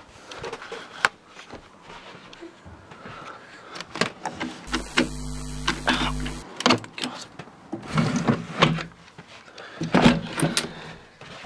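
A digital glitch sound effect, an electronic buzz with a steady hum, about five seconds in, lasting about two seconds and cutting off suddenly. Around it come clicks, knocks and rustling from a handheld camera being moved in the dark.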